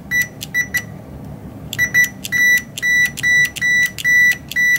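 A multimeter's continuity beeper sounding as an Alps keyswitch is pressed over and over: a few short, scattered beeps, then a steady run of short beeps, about two or three a second, from about two seconds in. Each beep is the repaired switch closing its contact, which now seems to work a lot better.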